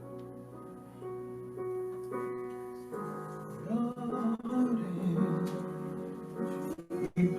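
Soft worship music on a keyboard playing sustained chords, with a wavering singing voice coming in about three seconds in.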